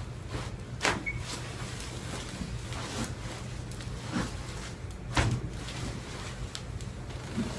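Sharp cracks and knocks during a chiropractic adjustment, about six short ones spread out, the loudest about five seconds in, over a steady low hum.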